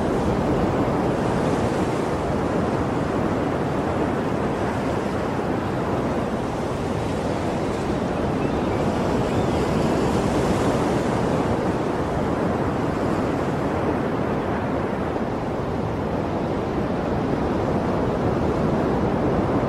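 Steady rush of sea waves and surf, rising and falling gently in loudness.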